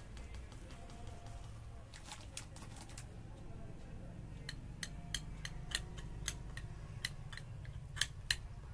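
A spoon clicking against a small bowl while stirring a gram flour and curd paste. The clicks are sparse at first and come about twice a second from halfway through, over a faint steady hum.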